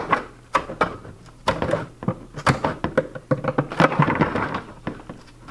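Tin snips cutting through the bottom of a plastic five-gallon bucket: an irregular run of sharp crunching snips and clicks, coming thickest around the middle.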